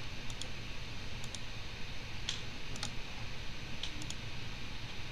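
About five sharp computer mouse clicks, spaced roughly a second apart, some as quick double ticks, over a steady low room hum.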